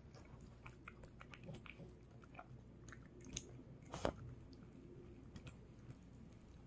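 A curly-coated dog eating soft rice and beef-radish soup from a bowl. It makes faint wet chewing and mouthing sounds, with scattered small clicks and one louder click about four seconds in.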